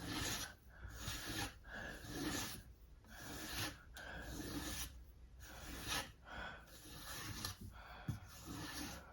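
Sharpening stone on a Tsprof Kadet guided knife sharpener being stroked along a chef's knife edge, an even rasping scrape repeated about once a second.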